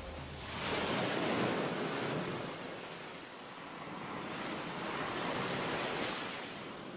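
Ocean surf breaking and washing up a sandy beach, a steady hiss of waves that swells about a second in, ebbs near the middle and swells again toward the end.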